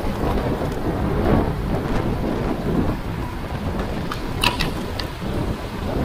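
Wind buffeting the microphone of a bike-mounted action camera while riding: a loud, steady low rumble, with a few sharp clicks about four and a half seconds in.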